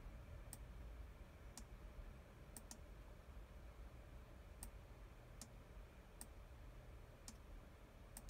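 About nine sharp, separate clicks at uneven intervals, two of them close together a little over two and a half seconds in, over near-silent room tone: the clicks of the controls used to step through a settings menu.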